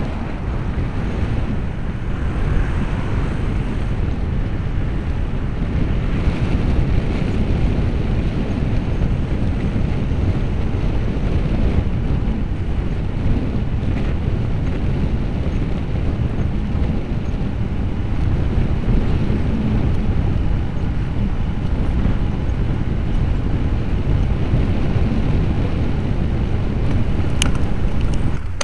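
Wind buffeting the microphone of a bicycle-mounted Manta MM355 action camera while riding, a steady low rumble mixed with traffic noise from the road alongside. A sharp click near the end.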